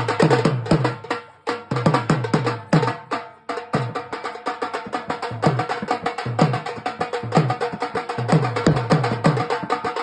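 Fast dhol drumming for dancing: a steady rhythm of sharp strokes with heavy bass beats, about four a second. It drops out briefly about one and a half seconds in and again about three and a half seconds in.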